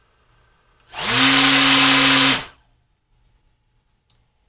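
Small brushless drone motor with a three-blade propeller, driven by a DIY ESC, run in one short burst of about a second and a half: a loud rush of propeller air over a steady low motor hum that rises in pitch as it spins up, then stops quickly.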